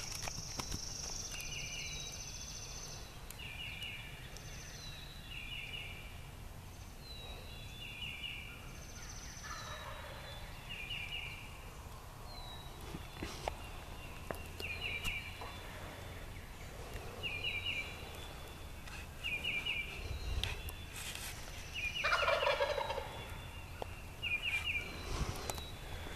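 Wild turkeys gobbling in the dark, with the loudest gobble near the end. Another animal's short, high call repeats about every second and a half throughout.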